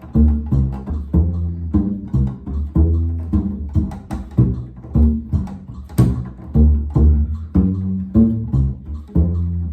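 Instrumental break of a rockabilly song: an upright bass plucked in a steady, rhythmic line of deep notes, with a sharp hit about six seconds in.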